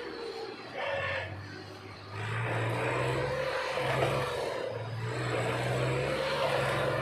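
Stuck tractor's diesel engine running under load in mud, revving up and down; it dips briefly about two seconds in, then picks up again.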